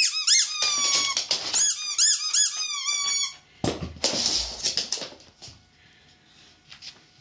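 Dog biting a squeaky rubber ball toy: a quick run of high squeaks, each rising and falling, for about three seconds. This is followed by a short scuffling rustle.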